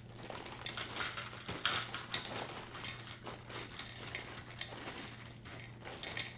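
Special K flakes and clusters being poured from the box's plastic bag liner into a bowl: a continuous irregular pattering rustle of dry cereal landing, thinning towards the end.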